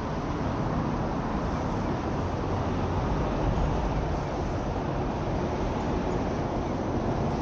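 Steady road traffic noise from passing vehicles, swelling slightly a few seconds in.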